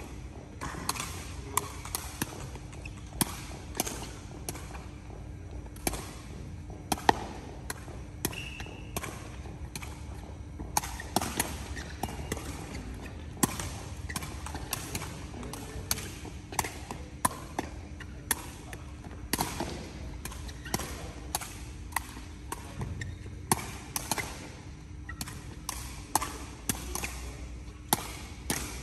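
Woven sepak takraw balls being kicked against rebound nets and bouncing off the court floor: a string of sharp, irregular knocks, about one or two a second, with a short echo after each and a steady low hum underneath.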